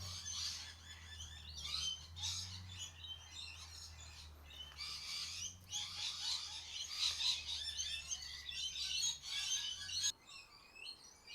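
Small birds chirping and twittering, with a faint low steady hum underneath that cuts off about ten seconds in.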